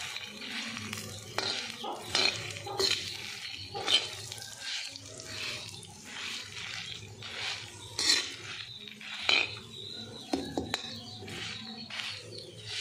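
Steel spoon stirring and scraping dry red chillies and coriander and cumin seeds across a hot tawa as they roast, in a string of irregular strokes about one every half second to second.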